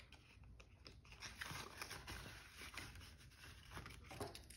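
Faint rustling of paper banknotes and plastic binder envelopes being handled, with a few light clicks and the flutter of ring-binder pages being turned near the end.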